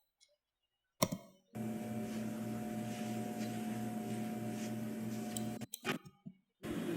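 A sound-effects mix playing back in an audio editor. A click, then a steady mechanical hum with a low throb about three times a second. It cuts off abruptly, a few short clicks follow, and the hum starts again near the end.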